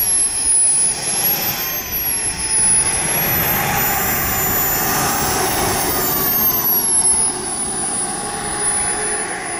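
Model jet turbine of a Skymaster Viper radio-controlled jet running on the ground. Its high whine rises and falls in pitch as the turbine spools up and down, then holds steady about seven seconds in.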